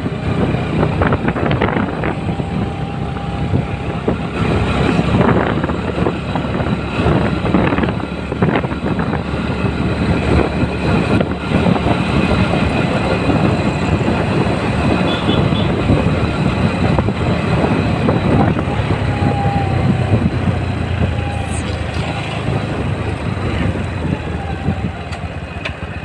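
Motorcycle being ridden along at a steady pace: the engine running with wind and road noise, no change in pace through the stretch.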